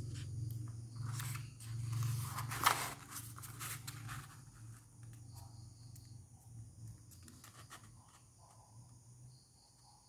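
A 20 cm square of origami paper rustling and crinkling as it is lifted and folded diagonally on a wooden tabletop, with a sharp crinkle about two and a half seconds in, then quieter rubs as the fold is pressed flat. Under it runs a steady low hum.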